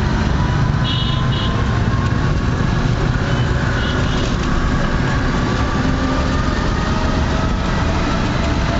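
Steady engine and road noise from riding a scooter through busy street traffic, with other vehicles running close by. A few brief high chirps sound about a second in.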